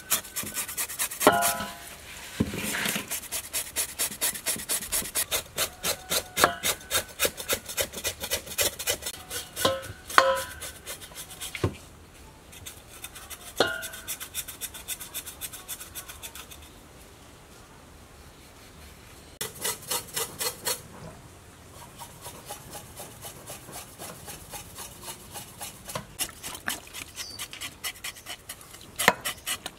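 Knife blade scraping across raw pig skin in quick repeated strokes, about three a second, in several runs with pauses between, as the pig's head is scraped clean.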